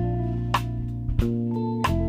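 Background music: plucked guitar over a steady beat.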